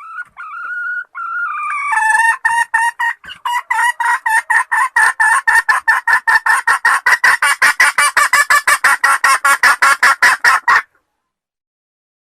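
Wild junglefowl calling: a few drawn-out notes, then a long run of short cackling notes that quickens to about five a second and stops abruptly near the end.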